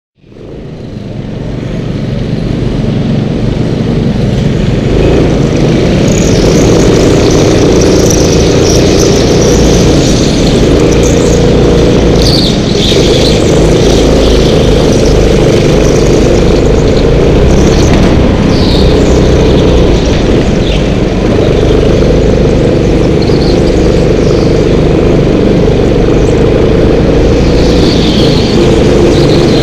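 Go-kart engines running at speed on an indoor track, heard from aboard a kart, fading in at the start. Short tyre squeals sound through the corners.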